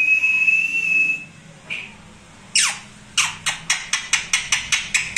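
A long, clear whistle, rising slowly in pitch, ends a little over a second in. After a short squawk, an Indian ringneck parakeet gives one loud harsh call, then a rapid run of about ten sharp, harsh screeches, about five a second.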